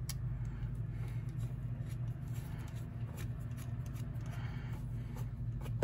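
Faint metallic clicks and scraping from a small driver working the screws of a folding knife's scales, over a steady low hum.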